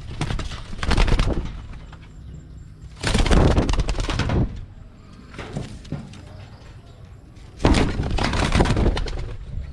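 A pigeon's wings flapping in three loud, noisy bursts of about a second each as it takes off and flies about.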